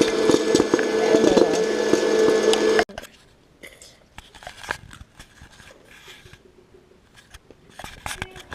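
A loud, steady whirring machine noise with a fast clicking rattle cuts off abruptly about three seconds in, leaving quiet with faint scattered clicks and taps.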